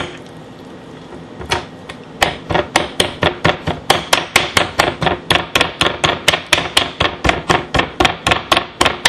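A fork jabbed again and again into a rack of raw pork ribs on a cutting board, the tines clicking against the board. After a single knock about a second and a half in, the quick taps run on steadily at about three a second.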